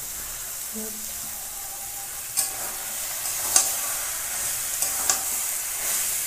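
Thick taro-leaf and fish-head curry sizzling in a metal kadai while a spatula stirs it, with several sharp scrapes of the spatula against the pan in the second half. The gravy is cooking down nearly dry.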